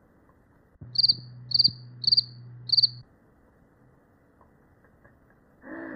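Cricket chirping sound effect: four short pulsed chirps about half a second apart, over a low steady hum that cuts off just after the last chirp.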